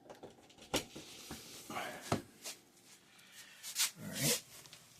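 Handling noise as a power cord is plugged into a wall receptacle: scattered clicks and knocks, with a brief voiced sound near the end.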